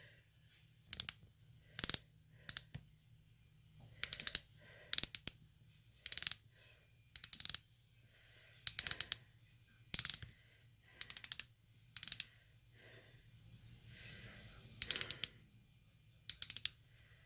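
Ratcheting clicks from twisting the dial of a new cosmetic applicator, in short bursts about once a second with a pause about two-thirds of the way through, pushing the product up to the tip for the first time.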